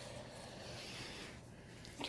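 Faint rustling of trading cards being handled, fading about a second and a half in, over a low steady hum.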